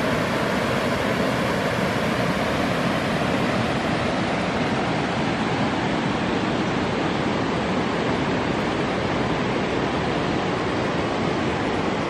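Steady rush of white water from the Low Force waterfall on the River Tees, loud and unchanging.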